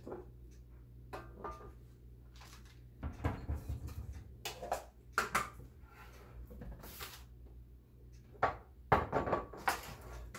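Scattered knocks, clatters and rustles of kitchen items being handled on a countertop, as a metal box grater is set down on a cutting board and a glass bowl is moved.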